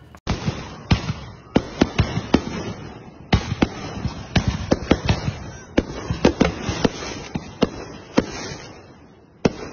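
Consumer aerial fireworks going off in a rapid barrage: many sharp bangs of launches and bursts, often a fraction of a second apart, for about nine seconds, with a last single bang near the end.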